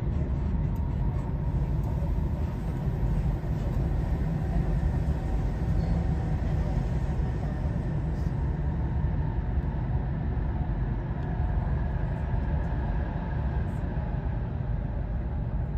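Steady low rumble of an Arlanda Express electric train running, heard from inside the passenger carriage.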